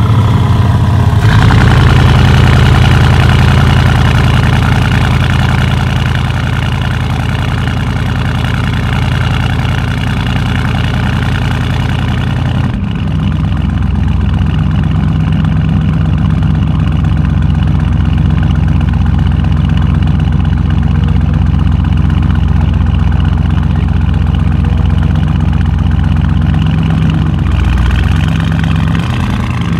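Lamborghini Urus twin-turbo V8 idling through a loud Capristo aftermarket exhaust, a steady rumble. The idle rises about a second in, then steps down to a lower, deeper note about 13 seconds in.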